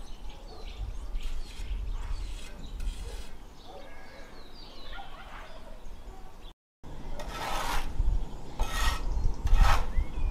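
Scraping and rubbing strokes of a plastering tool working cement render on a wall. A brief dropout about two-thirds through is followed by several louder strokes, roughly a second apart.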